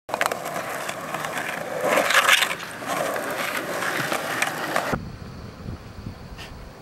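Skateboard wheels rolling over rough asphalt, a steady rolling noise that grows louder about two seconds in and cuts off suddenly about five seconds in. After that it is much quieter, with a few faint knocks.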